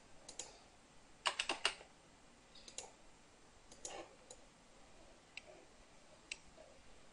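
Faint, sharp clicks of a computer mouse at irregular intervals, with a quick run of four about a second in.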